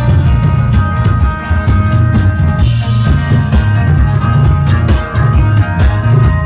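Rock band playing live through an outdoor stage PA, heard from within the crowd: a heavy, loud bass line under regular drum hits, with held notes ringing above.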